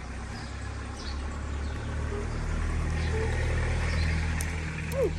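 A motor vehicle's engine passing by, with a steady low hum that grows louder to a peak about four seconds in and then eases. A few short pitched calls sound near the end.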